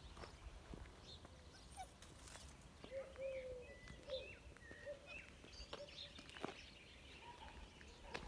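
Faint animal calls: scattered short, high chirps throughout, with a few lower squeaky calls about three to four seconds in, over light scuffing clicks.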